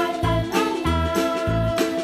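Upbeat background music in a children's-song style, with a steady bouncing bass beat under a bright melody.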